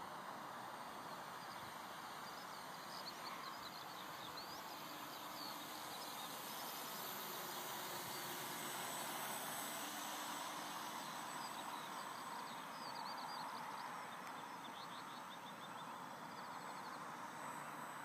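Faint birds chirping over a steady outdoor hiss, which swells a little about halfway through.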